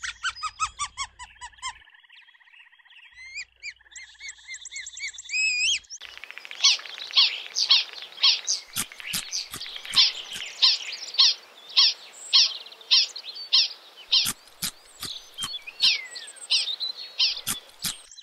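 Ground squirrel making high, squeaky chirping calls in quick series. From about six seconds in, the chirps come steadily, about two a second, mixed with sharp clicks.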